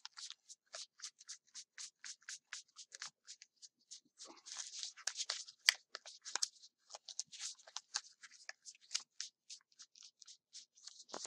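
A stack of paper banknotes ($100 bills) flicked through one by one by hand: a fast run of crisp papery flicks, about four or five a second.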